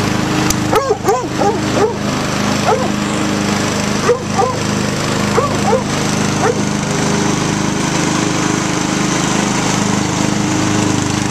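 Lawn mower engine running steadily while a dog barks at it over and over, the barks dying away about two-thirds of the way through.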